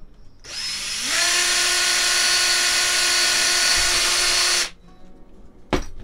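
Cordless DeWalt drill spinning up with a rising whine and running steadily for about four seconds as it drills a hole in the screen-door grab handle, then stopping abruptly. A single sharp knock follows near the end.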